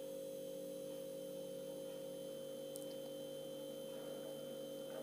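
Steady low hum made of several constant tones, with a faint tick about three seconds in.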